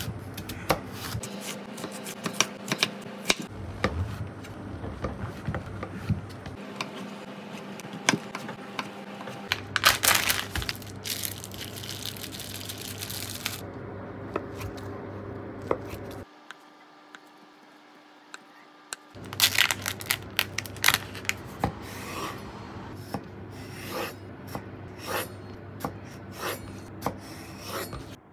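Kitchen food preparation: repeated sharp knife strokes and scraping on a wooden cutting board. There is a brief hiss about ten seconds in.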